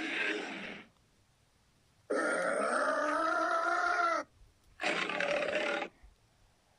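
Custom-made Godzilla roar sound effects in the Godzilla 2000 style. One roar ends near the start. After a short silence comes a pitched roar of about two seconds that bends down in pitch at its end, and then a shorter roar of about one second.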